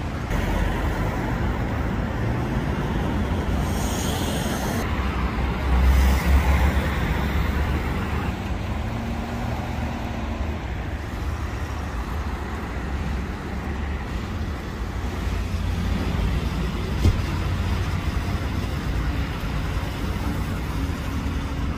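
Road traffic on a busy city avenue: a steady rumble of passing cars and engines, swelling louder about six seconds in as a vehicle goes by, with a single sharp click later on.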